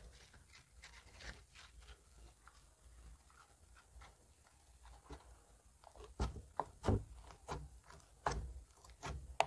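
Homemade detergent-activated slime being stretched, kneaded and pressed with the fingers, giving soft sticky clicks and squelches. From about six seconds in these turn into louder, sharper pops and clicks, several a second, as the slime is pressed flat.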